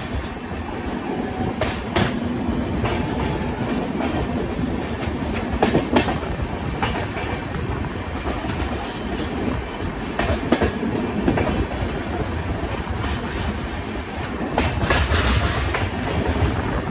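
Passenger express train running on the track: a steady rumble of coaches and wheels, with the wheels clacking over rail joints at uneven intervals and a louder stretch of clatter near the end.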